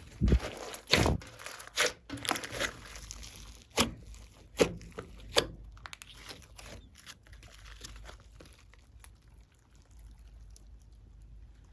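Glossy slime being squeezed, stretched and folded by hand, giving a run of sharp crackling pops and squelches, then quieter squishing from about halfway through.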